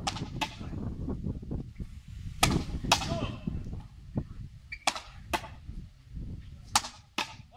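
Frontenis rally with a yellow Head slow-type rubber ball. It cracks sharply off the rackets and smacks against the frontón wall, with a short ring after each hit. The strikes come in pairs about half a second apart, one pair every two seconds or so.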